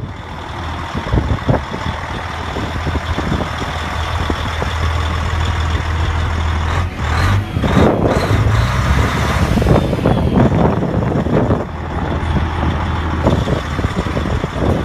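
Heavy diesel truck engine idling, a steady low drone, with general outdoor noise that swells for a few seconds in the middle.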